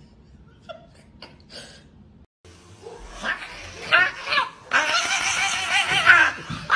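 After a few faint clicks, an angry cat growls and yowls with a hissing edge. The wavering cry builds about three seconds in and stops abruptly near the end, while the cat swats at a hand.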